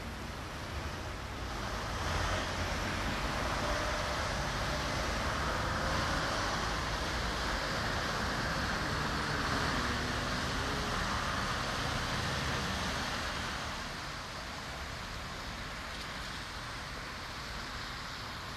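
Road traffic passing on a snowy, wet road: tyre hiss and engine sound that swell as vehicles pass from about two seconds in and ease off again after about thirteen seconds.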